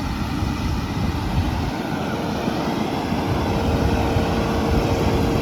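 Fendt 724 tractor running while pulling a Massey Ferguson RB156 round baler through the field: a steady engine drone with baler machinery noise. A thin steady whine joins about halfway through.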